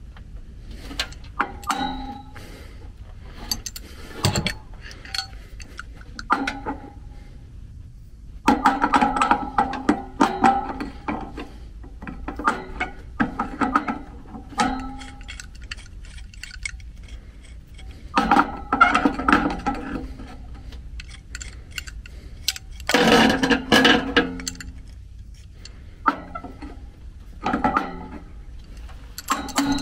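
Runs of sharp metal-on-metal strikes on a pointed punch held against the end of a stuck motor shaft, driving it out of the blower wheel's hub, with lighter scattered clinks between. The sheet-metal blower rings after each run of blows at the same few steady pitches.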